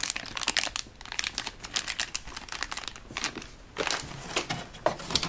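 Clear plastic bag crinkling as it is handled, in irregular crackles with a couple of quieter gaps.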